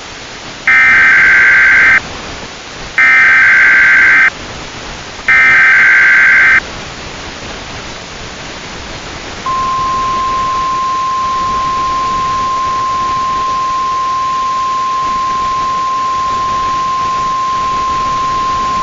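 Emergency Alert System signal: three rasping bursts of SAME digital header data, each a little over a second long, then after a pause a single steady attention tone near 1 kHz that starts about halfway through and holds. A constant hiss of static runs underneath.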